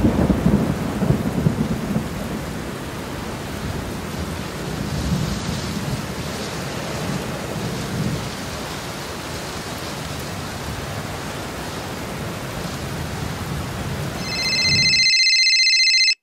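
Rain with rolling thunder, a heavy rumble at the start settling into steady rain. Near the end a high, steady electronic tone comes in, the rain cuts off abruptly, and the tone then stops.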